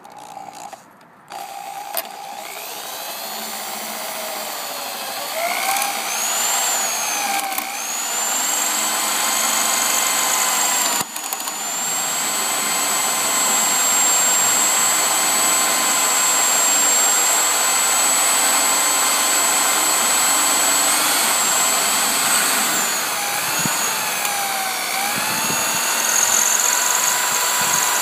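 Electric drill with a 3/16-inch bit boring into a deadbolt lock cylinder, widening the hole to chew up the pin stacks. It starts a couple of seconds in and builds to a steady high whine whose pitch wavers as the bit loads up, with a brief drop about 11 seconds in.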